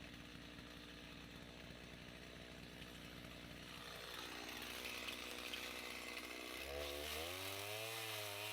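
Two-stroke Stihl MS290 Farm Boss chainsaw idling low, then revved up from about halfway and cutting through a pine round, its pitch rising and sagging as the chain bites.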